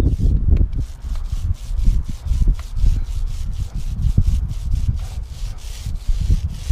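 A Corona Excalibur paintbrush scrubbing thick deck coating onto wood in quick repeated strokes, several a second, with a low rumble underneath.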